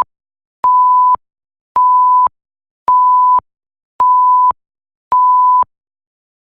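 Electronic beep tone: five short beeps of one steady pure pitch, about half a second each and spaced about a second apart.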